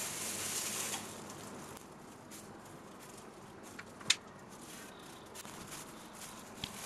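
Faint handling noises: a soft hiss in the first second, then a few small clicks and taps, the sharpest about four seconds in. They come as thick acrylic paint is poured onto a canvas from a cup.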